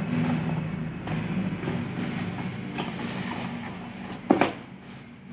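Handling and rustling of cardboard packaging while unboxing, with a loud sharp double crack about four seconds in, over a steady low hum.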